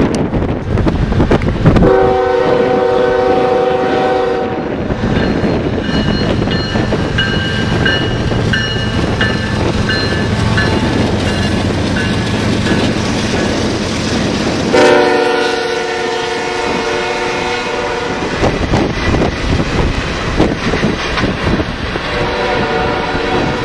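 A CSX GE GEVO diesel locomotive leading a Norfolk Southern freight sounds its multi-note horn in long blasts, about two seconds in and again around fifteen seconds, with another starting near the end. Between the blasts the locomotives' diesel engines run past with intermittent high squealing, and then the freight cars roll by, clicking over the rails.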